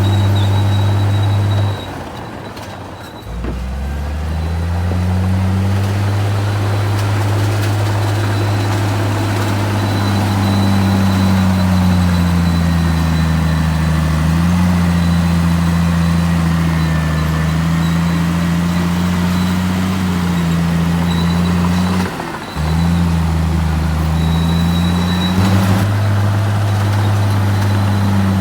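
Heavy diesel engine of earthmoving equipment running under load. It drops off about two seconds in, then picks up again with its pitch rising as it revs back up, and dips once more briefly near the end.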